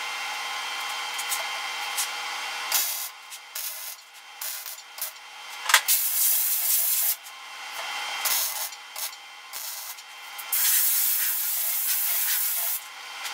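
Compressed-air blow gun blasting air along a freshly stitch-welded door-skin seam, clearing grinding dust between welds. It comes in several hissing blasts of one to two seconds each, starting about three seconds in, with quieter gaps between them.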